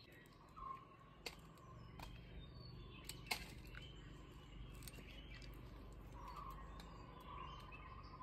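A billhook blade nicking the bark of a resin-tapped sambrani tree: a few sharp, faint clicks, the loudest about three seconds in, over faint bird chirps and low outdoor hum.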